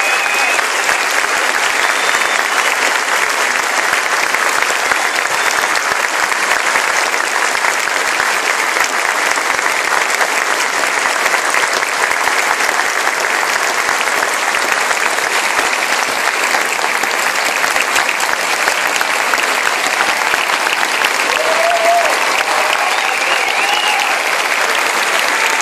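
A large concert-hall audience applauding steadily and without a break. A faint call or two from the crowd rises above it near the end.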